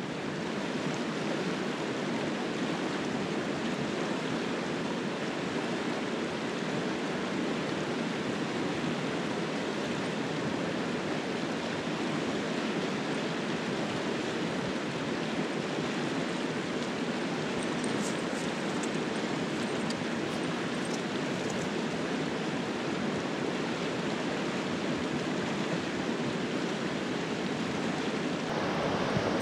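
Fast mountain river rushing over rocks, a steady even rush of whitewater close by.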